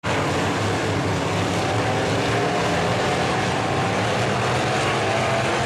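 Dirt-track race car engines running steadily, with several engine notes overlapping.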